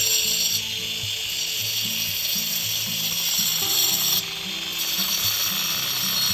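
A handheld power tool running in two long stretches with a short break about four seconds in, driving fasteners into bamboo, over background music.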